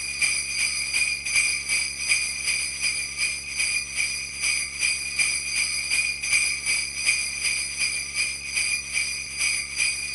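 Sleigh bells jingling in a steady rhythm, about two shakes a second.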